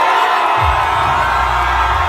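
A large crowd cheering and shouting, with music coming in about half a second in: a deep bass note and a held tone under the voices.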